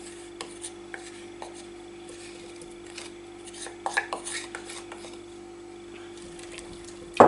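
Wooden spoon scraping and knocking against a ceramic bowl in short, scattered strokes, with a quick run of knocks about four seconds in and a louder knock at the very end.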